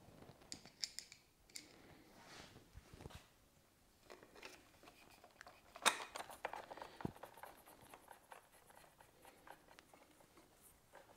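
Faint scattered clicks and scrapes of a screwdriver and small parts being handled, with a denser run of clicks and rattles about six seconds in.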